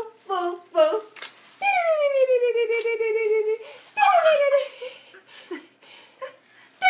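A toddler's high-pitched voice: a few short babbling syllables, then a long squeal falling in pitch over about two seconds, and a second, shorter falling squeal about four seconds in.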